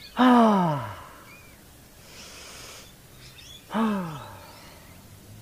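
A person breathing in and then sighing out loud twice, each a long 'ahh' that falls in pitch, the release of a full-body stretch. Faint bird chirps are heard between the sighs.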